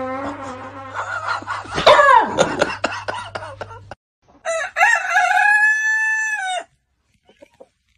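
A rooster crowing once, a call of about two seconds that starts about halfway in and bends at its start and drops at its end. Before it come loud falling cries and a run of clicks.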